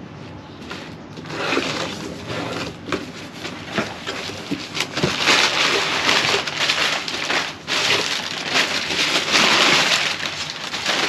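Crumpled brown kraft packing paper crinkling and rustling as it is pulled out of a cardboard box, loudest in the second half.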